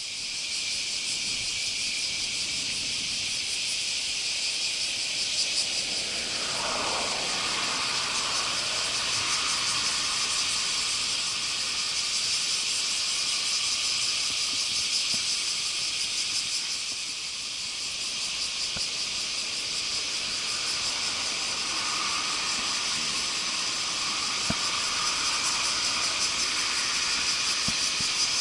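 Steady high-pitched chorus of summer cicadas, a dense shimmering hiss, with a brief falling sound about six seconds in.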